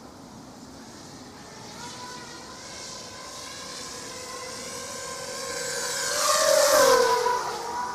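ZMR250 racing quadcopter's brushless motors and props whining, growing louder as it closes in and passes close by about seven seconds in, the pitch dropping as it goes past.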